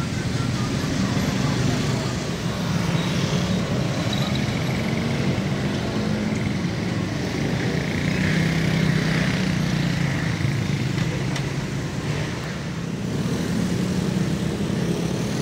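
Road traffic running steadily through a railway level crossing: engines hum and tyres hiss without a break, swelling a little about eight seconds in.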